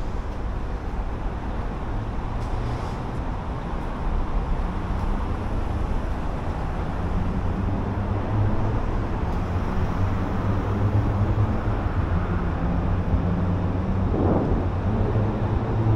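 Road traffic: a steady rumble of vehicles, with a low engine hum growing louder in the second half as a vehicle comes close.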